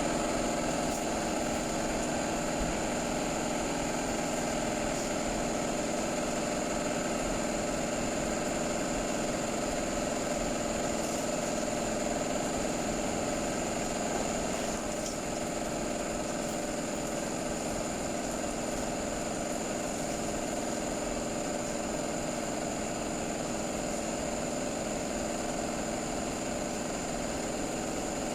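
A motor running steadily, a constant hum with a thin high whine, easing slightly about halfway through.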